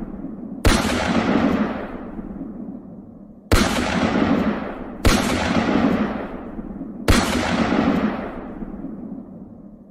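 Stock gunfire and blast sound effects: four sudden shots or booms, spaced one and a half to three seconds apart, each with a long fading tail.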